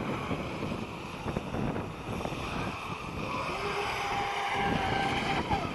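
Radio-controlled model boat's motor running, with a faint steady whine that comes in clearly from about three and a half seconds in and lasts almost to the end, over wind noise on the microphone.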